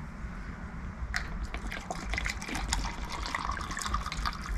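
Liquid iron fertiliser poured from its bottle into a small plastic measuring cup, starting about a second in, with irregular glugs and splashes as the cup fills.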